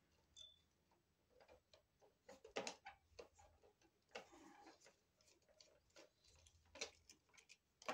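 Faint, irregular clicks, ticks and small scrapes of hand tools and copper wire against a wall outlet receptacle as unused wires are taken off its terminals.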